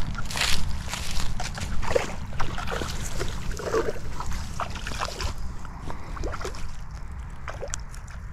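Rustling and clicking of hands and gear as a crappie is threaded onto a fish stringer, with many short handling clicks, over a steady low rumble.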